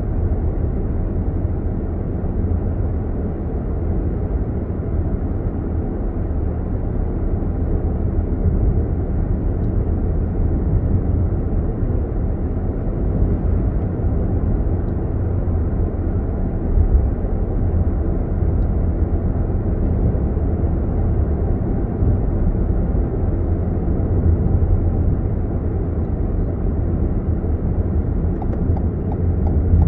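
Steady low road-and-engine rumble of a car driving along, heard from inside the cabin.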